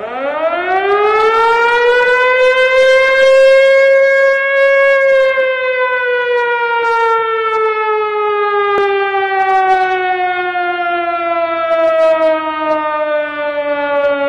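Loud air-raid warning siren winding up to a high wail over about four seconds, then slowly winding down in pitch.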